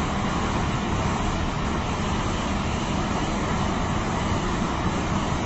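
Steady rushing noise on the deck of a moving cruise ship, wind buffeting the microphone together with the ship's rumble, heaviest in the low end.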